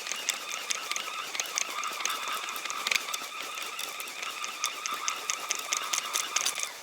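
Ice-fishing reel's ratchet clicking rapidly as line pays out, with a steady whine underneath; both stop near the end.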